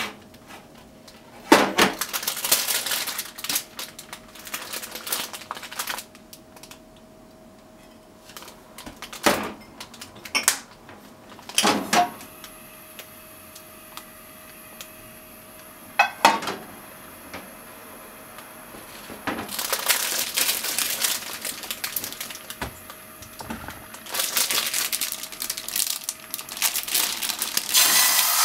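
Kitchen handling sounds at a gas stove: a steel frying pan knocking on the cast-iron grate, the gas burner clicking alight and hissing, and plastic meat packaging crinkling as it is opened. Near the end the ground pork drops into the hot oil and starts to sizzle.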